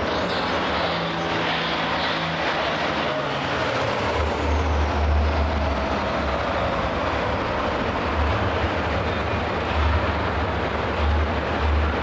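Hot farm pulling tractor's turbocharged diesel engine running hard under load while pulling a sled. A high whistle rises in the first second, holds, then falls away over the next few seconds, and a deep pulsing engine drone builds from about four seconds in.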